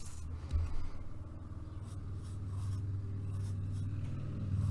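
Coloured pencil scratching on paper in a series of short drawing strokes, over a steady low hum.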